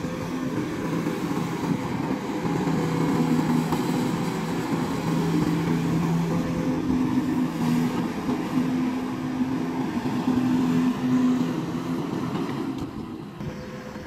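SDLG crawler excavator's diesel engine running under load as it digs, a steady hum that shifts in pitch as it works. It drops in level about thirteen seconds in.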